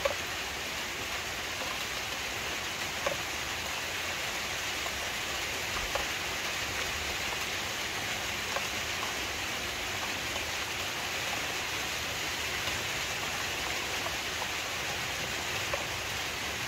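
A steady hiss in the open air, with a few faint, sharp clinks of a spoon against a steel bowl, about five times spread through.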